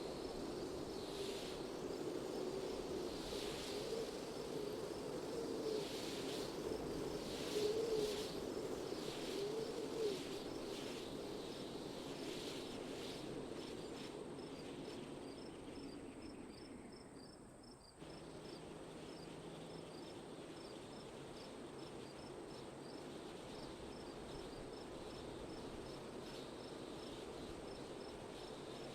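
Outdoor wind ambience: a steady rush of wind swelling in gusts, with crickets chirping in an even, rapid series. About eighteen seconds in, the sound dips and cuts abruptly to a calmer stretch where the wind is steadier and the cricket chirps carry on.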